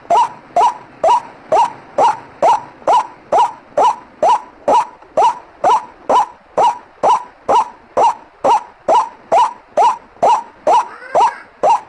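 White-breasted waterhen (ruak-ruak) calling: a short note sliding up in pitch, repeated evenly about twice a second. It is a lure (pikat) call used by bird trappers to draw waterhens in.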